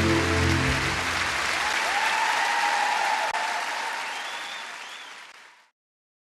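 The band's final held chord dies away about a second in, leaving applause and cheering from a large concert audience. The applause fades out and drops to silence shortly before the end.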